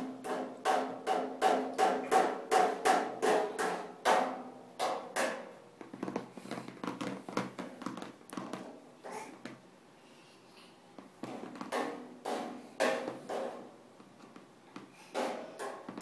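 Rapid rhythmic knocking, about three knocks a second, which thins out into scattered, irregular knocks after about five seconds.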